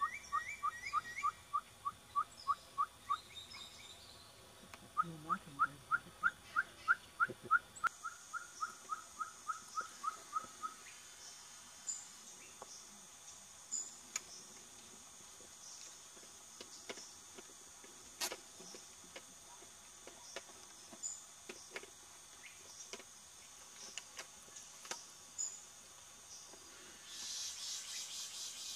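Citreoline trogon singing: evenly paced runs of repeated hollow notes, a short run and then a longer one that fades away. A steady high insect trill follows with faint scattered chirps, and a louder insect buzz comes in near the end.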